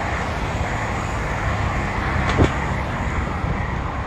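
Steady rushing wind and road noise while riding a bicycle, with a single sharp knock about two and a half seconds in.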